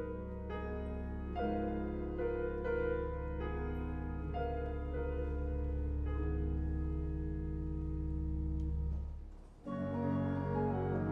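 Piano and organ playing a slow, quiet passage, piano chords over a sustained low organ note. About nine seconds in the sound fades away, and a new, denser passage starts a moment later.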